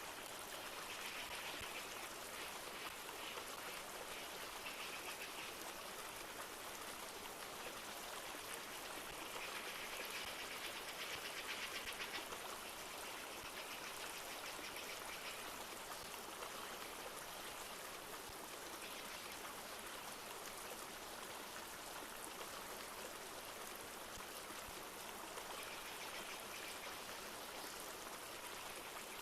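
A flowing river rushing steadily, with light rain falling, swelling slightly about a third of the way in.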